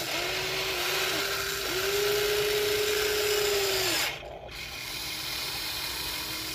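Electric gear motors of a radio-controlled toy excavator whining as the arm and bucket move, a steady high hum in a few runs that stops about four seconds in, then a fainter hum.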